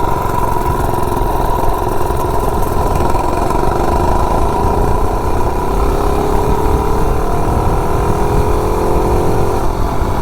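Modified 98cc three-horsepower single-cylinder mini bike engine, with a billet flywheel, performance cam, header pipe and governor removed, running at full throttle through a 0-to-30 mph acceleration run. Its pitch climbs steadily as the bike picks up speed, then falls away near the end as the throttle eases off.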